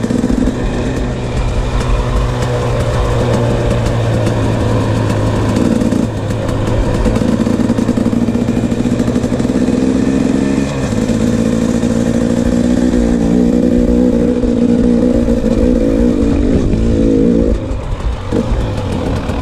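KTM 300 XC-W two-stroke dirt bike engine running under way on a dirt trail, its note holding steady between changes in pitch about six and eleven seconds in. Near the end the engine note drops and gets quieter as the bike slows.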